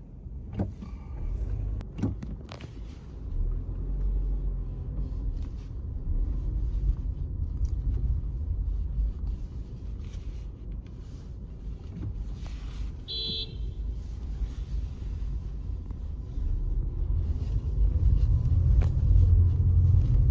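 A car in motion: steady low road and engine rumble, growing louder near the end, with a brief high-pitched beep about 13 seconds in.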